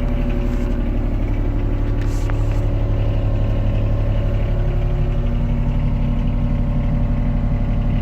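John Deere 26G mini excavator's diesel engine idling steadily, heard from inside the enclosed cab.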